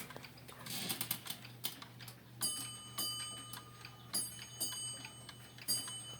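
Clock ticking, then a clock chime striking several notes about two and a half seconds in, each note ringing on with a bright, bell-like tone.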